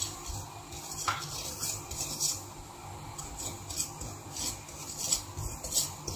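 Spatula scraping and stirring poppy seeds in a dry pan as they roast, in short irregular strokes about twice a second.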